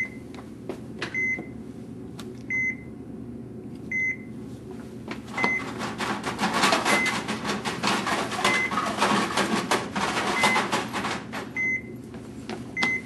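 A patient monitor beeping steadily, one short high beep about every one and a half seconds. From about five seconds in, a stretch of loud rustling and clattering runs for several seconds over the beeps.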